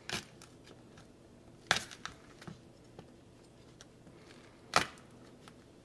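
A fork puncturing fresh jalapeño peppers on a wooden cutting board: three short sharp clicks spread over several seconds, with a few fainter ticks between.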